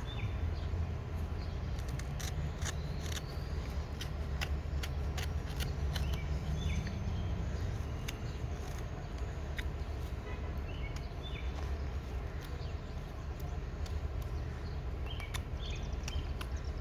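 Knife whittling wood by hand: short, sharp clicks of the blade cutting, scattered irregularly. Birds chirp faintly over a steady low rumble.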